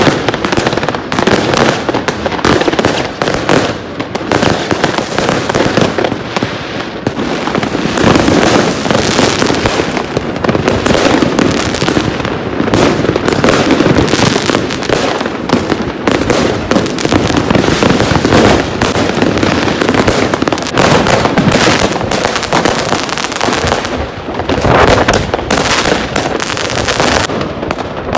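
Fireworks and firecrackers going off densely, many bangs and crackles overlapping without a break.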